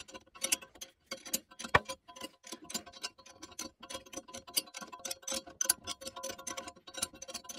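Rapid, irregular light metallic ticks and clinks of a combination wrench working the bolts of a crankshaft sleeve-installer tool, sped up, over a faint steady tone.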